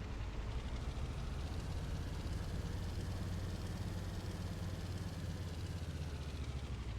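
A steady low rumble, even throughout.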